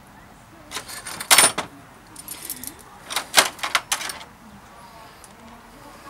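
Metal clicks and clinks from a cable-pulling pliers tool and hand tools at a bicycle's front derailleur as the gear cable tension is readjusted. They come in several short clusters, the loudest about three seconds in.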